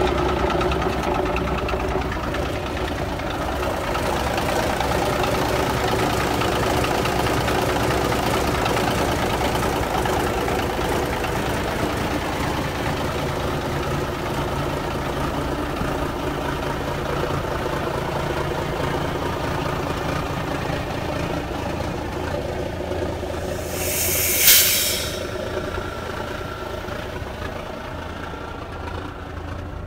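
Diesel engine of a 1989 Freightliner FLD120 dump truck idling steadily, with a knocking diesel clatter. About 24 seconds in, the truck's air system lets out one short, sharp blast of hissing air.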